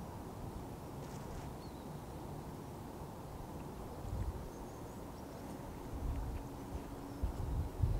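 Steady distant road-traffic hum, with a few low thumps of wind on the microphone about four seconds in and near the end, and faint bird chirps.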